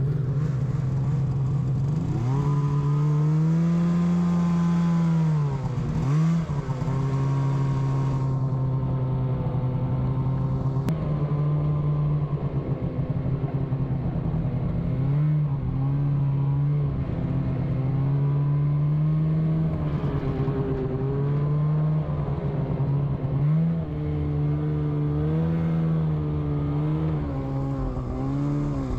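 Snowmobile engine running under throttle, its pitch rising and dropping again and again as the rider speeds up and eases off, with several sharp dips.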